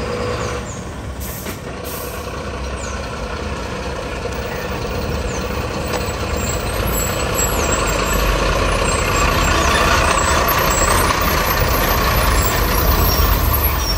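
Bharat Benz 3528 8x4 twelve-wheel tipper truck driving, its diesel engine and tyres growing steadily louder as it approaches and passes close by.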